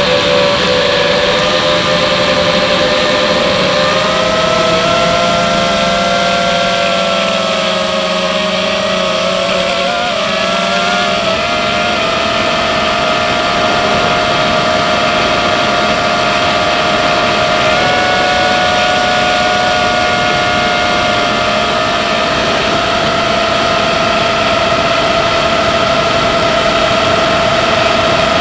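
FPV aircraft's electric motors and propellers whining steadily over a rushing of air, as heard from its onboard camera. Between about 4 and 11 seconds in, the motor tones waver and split apart as the throttle changes, then they settle and step up slightly in pitch about 18 seconds in.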